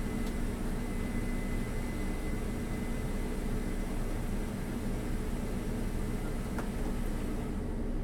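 Case 7240 combine running steadily while unloading, its auger pouring harvested rice into a grain cart: a constant machine drone.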